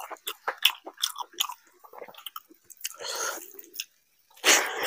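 Eating sounds: a hand squishes rice into mutton curry gravy with many short wet clicks, then a handful goes into the mouth with smacking and chewing. The loudest wet burst comes just before the end.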